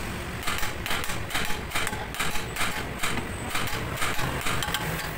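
Steel hammer striking the steering knuckle of a Mitsubishi Adventure over and over, metal on metal, about two blows a second, to knock the tie-rod end loose.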